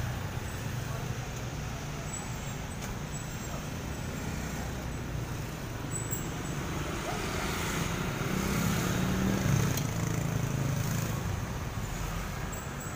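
Road traffic going by, a steady rumble that swells as a vehicle passes about eight to ten seconds in.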